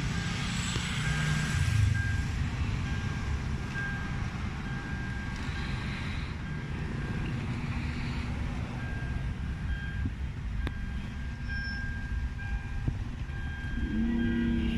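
Steady low vehicle rumble with a thin high electronic beep that sounds again and again in short pulses.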